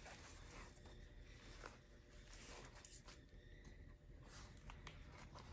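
Near silence with faint, brief rustles of a ribbon being tied into a bow and paper cardstock being handled.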